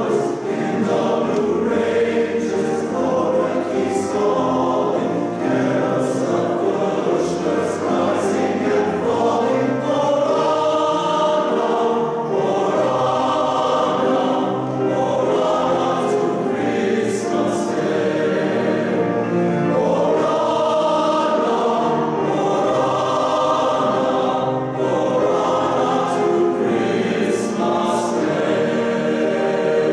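Men's chorus singing a Christmas carol in full harmony, with sustained chords and clear sibilant consonants.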